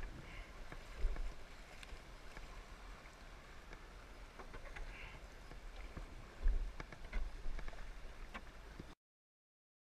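Kayak running down shallow creek riffles: rushing water against the plastic hull and paddle strokes splashing, with a couple of low thumps. The sound cuts off suddenly near the end.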